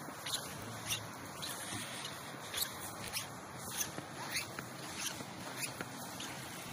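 Footsteps crunching and squeaking in fresh snow at a steady walking pace, over a steady hiss.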